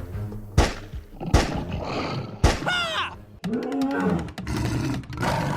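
Three sharp thumps about a second apart, then a falling pitched cry and a short groaning voice.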